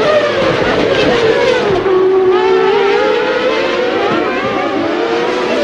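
Several 1995 Formula One cars' engines running at high revs, their pitch dropping to a low around two seconds in and then climbing again.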